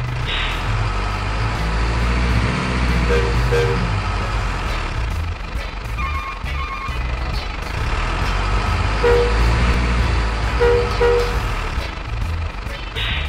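Heavy truck engine sound running steadily for a toy RC truck with trailers, with a few short paired beeps and a brief hiss near the start and again near the end.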